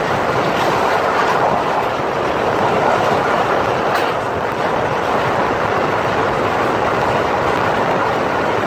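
Passenger train running along the track, heard close up from a moving coach: a steady rumble and rattle of wheels on rails mixed with rushing air, with one faint click about four seconds in.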